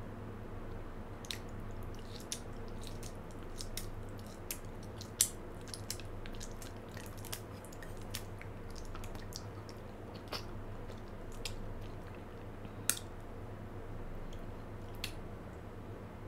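Close-miked biting and chewing of a chocolate-coated marshmallow gummy bear: irregular sharp clicks and smacks from the mouth, with two louder snaps about five and thirteen seconds in. A steady low hum runs underneath.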